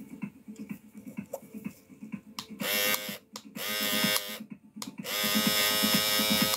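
Small electric motor of a barber's grooming tool (shaver or clipper) under repair, switched on three times: two short buzzes, then a longer run near the end. Each run starts with a quick rise in pitch. Soft background music with a steady beat underneath.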